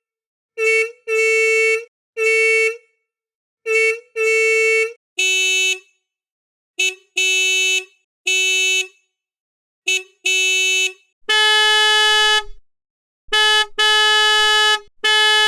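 Škoda car horns honking in patterns of short and longer blasts, each honk one steady pitch. A higher-pitched horn sounds first, a lower-pitched one from about five seconds in, and a higher one again from about eleven seconds in.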